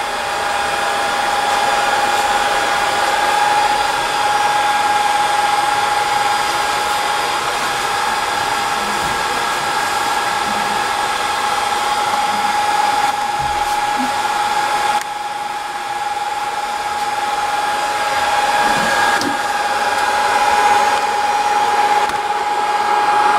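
Hot-air blowers of a ZC-C2 BGA rework station running steadily while heating a motherboard chip to reflow temperature: a continuous rushing hiss with a steady whine at one pitch.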